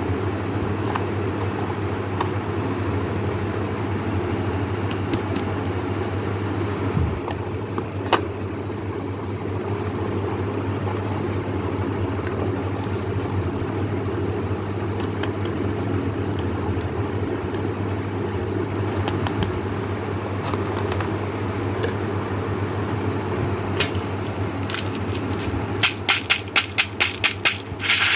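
A steady low hum, with a few isolated clicks; near the end a quick run of sharp clicks, about four or five a second.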